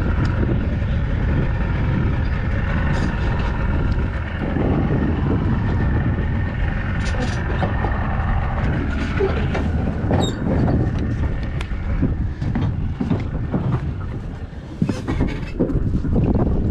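Wind buffeting the microphone, a steady low rumble, with occasional clicks and knocks from handling.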